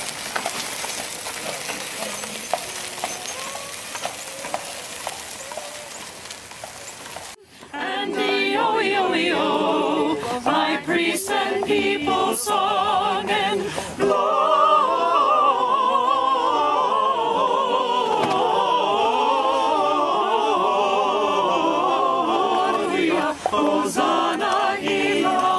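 Steady outdoor noise for about seven seconds, cut off abruptly, then a group of carolers singing a Christmas carol in several voices.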